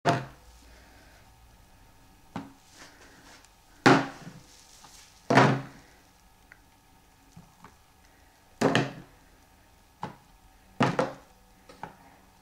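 Plastic ice cubes knocking against plastic bowls and a wooden tray as a small child picks them up and drops them in to sort them: about eight separate sharp clacks at uneven intervals.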